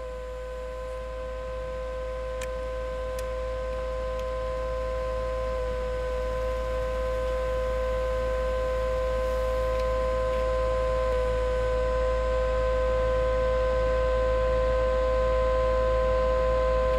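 A sustained electronic drone: a chord of steady tones held over a low hum, slowly swelling louder.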